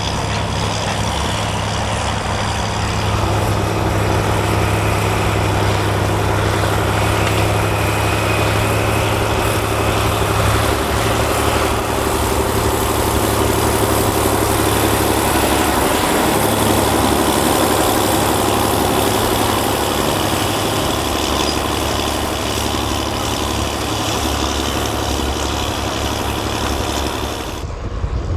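John Deere 7520's turbocharged six-cylinder diesel engine running steadily as the tractor works with a six-furrow plough, a continuous low drone. The sound changes abruptly just before the end.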